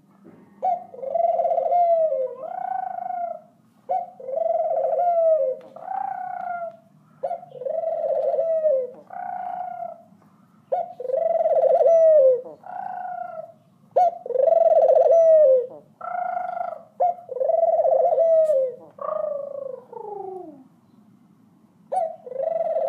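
Tangerine ringneck dove cooing over and over, each round a longer coo followed by a shorter one, about six rounds in a row.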